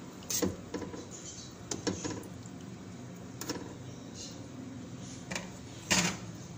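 Metal utensil knocking and scraping against a perforated steel rice strainer as a steamed whole chicken is turned over in it: scattered short clinks, the loudest about six seconds in, over a steady low hum.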